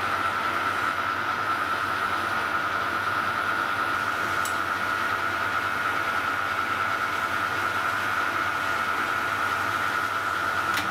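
Metal lathe running steadily with a constant high whine while the cutting tool turns down a thick-walled plastic pipe, peeling off stringy plastic swarf.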